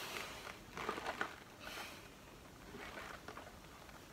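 Air being sucked out of an AP Valves XPD rebreather's breathing loop through its mouthpiece, to evacuate the loop for a negative-pressure leak test. There are two breathy pulls, one at the start and another a little under two seconds in, with faint handling sounds between them.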